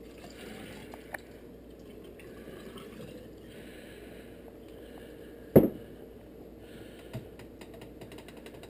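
Moonshine poured from a glass mason jar through a plastic funnel into a tall hydrometer test cylinder: a faint trickle coming in short spells. One sharp clunk about halfway through, as the glass jar is set down on the countertop, with a couple of light clicks around it.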